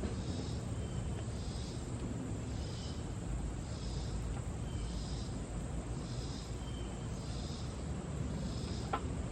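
Steady low background rumble with a short high chirp repeating about once a second, and a single light click near the end.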